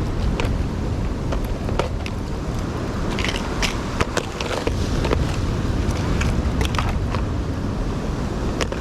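Wind buffeting the microphone, a steady low rumble, with irregular sharp clicks and taps scattered through it.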